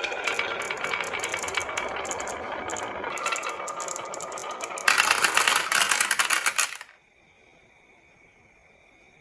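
Marbles rolling and clattering down a wooden marble run, a dense run of small rapid clicks that gets louder about five seconds in and then stops abruptly near the end.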